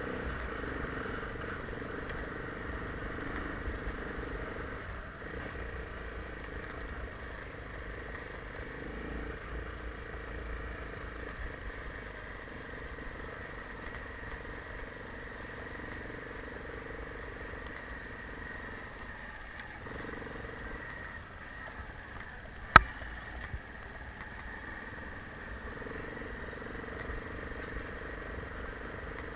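Enduro motorcycle engine running steadily, with one sharp knock about three-quarters of the way through.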